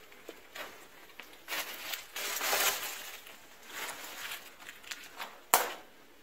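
Footsteps on a rubble- and debris-strewn floor: irregular steps scraping over loose stones and plaster, heaviest from about one and a half to three seconds in, then one sharp knock near the end.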